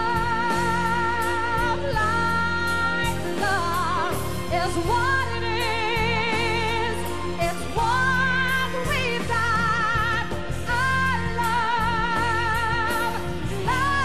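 A female singer belting long held notes with a wide vibrato and sliding between pitches, backed by a live band with bass and drums.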